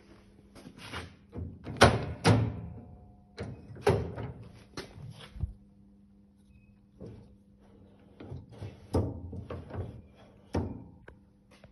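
Irregular metal clunks and knocks from the levers and parts of a Maja SAM 500 mobile skinner, a meat-derinding machine, as they are handled. The loudest knock comes about two seconds in, and they run over a faint steady hum.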